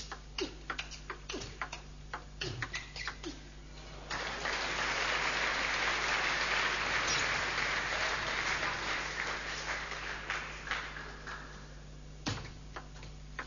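Table tennis ball clicking off bats and table in a fast rally, several hits a second. About four seconds in the rally ends and crowd applause takes over for about eight seconds, fading away. A few more ball clicks come near the end.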